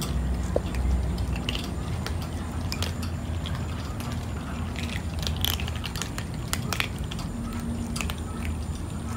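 A group of cats crunching dry kibble: many small, irregular crunches and clicks, over a low rumble.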